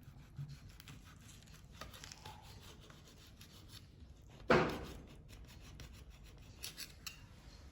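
Knife cutting through a stuffed maize-flour roti sandwich: light scraping and small taps, with one louder cut or knock a little past halfway.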